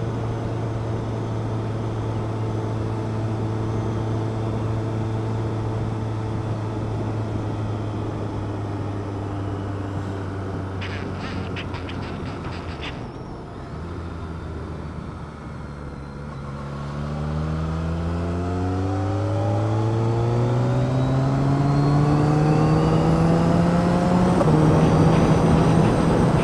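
Road vehicle's engine heard from on board with wind and road noise: the engine note sinks slowly as the vehicle eases off and slows, with a short patter of clicks about eleven seconds in, then climbs in pitch through three gear changes as it accelerates away.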